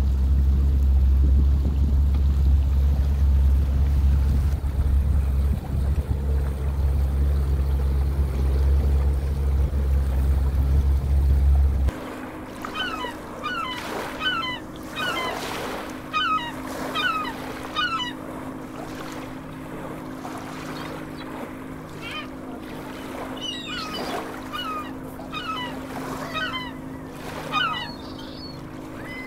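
A boat engine running steadily with a deep rumble, cutting off abruptly about twelve seconds in. After that come many short, repeated bird calls over a faint steady hum.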